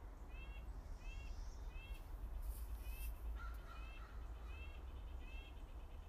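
Red-breasted nuthatch calling: a steady series of about eight short, evenly spaced calls, over a low background rumble.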